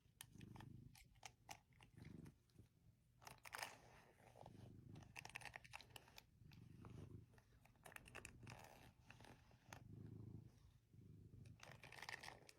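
A cat purring quietly, the purr swelling and fading about every second and a half, with scattered crunchy clicks.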